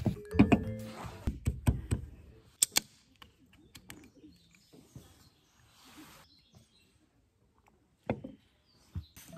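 Beer can being handled and opened: sharp clicks and taps, then a short soft hiss from the pull tab about six seconds in, with faint bird chirps.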